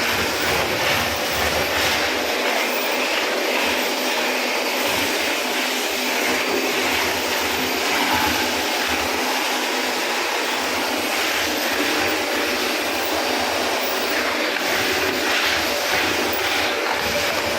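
Eureka Forbes SuperVac 1600 W bagless cyclonic vacuum cleaner running steadily: an even rush of air with a faint steady hum underneath.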